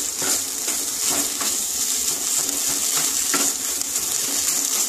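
Wooden spatula scraping and stirring a thick leaf paste in a non-stick karahi, with several scrapes about once a second over a steady sizzling hiss. The paste has cooked down almost dry and is pulling away from the pan.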